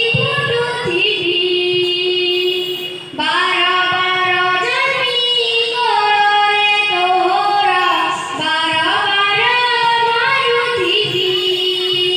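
A child singing a solo song into a microphone: a melodic line of long held, sliding notes, with a short break for breath about three seconds in.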